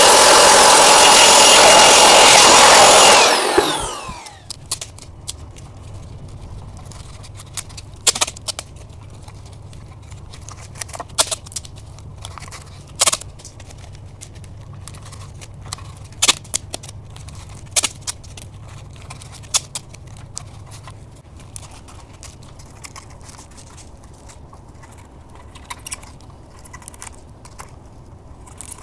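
An electric power tool running loudly, switched off about three and a half seconds in and winding down with a falling whine. Then quiet handwork: scattered clicks and taps over a low hum.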